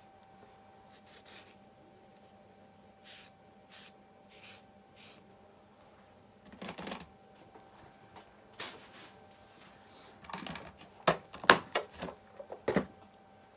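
Small metal parts of a restored hand-tool leveler being handled and set down for reassembly: scattered light clicks and clinks, with a cluster of sharper knocks about ten to thirteen seconds in.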